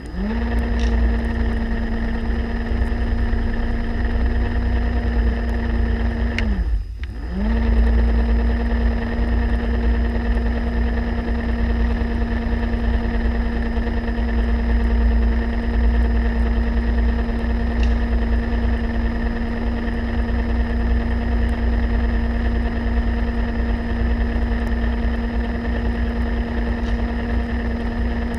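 Electric motor of a diver propulsion vehicle (underwater scooter) running underwater: a steady hum over a heavy low rumble of water rushing past. It spins up at the start, cuts out for a moment about seven seconds in with its pitch falling, then spins back up and runs steadily.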